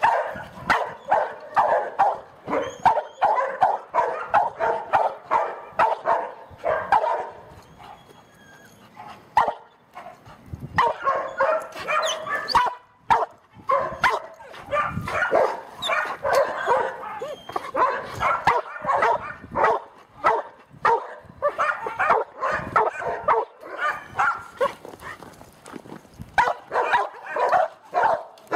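A dog barking and yipping over and over in quick runs, with a lull about eight to ten seconds in.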